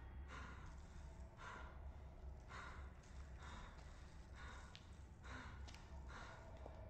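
A man breathing heavily, with hissy breaths about once a second.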